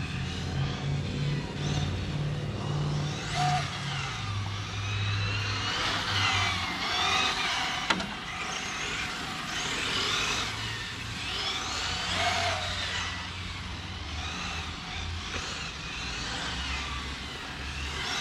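Brushless electric RC car motors whining, the pitch rising and falling over and over as the cars speed up and slow down, with a sharp click about eight seconds in.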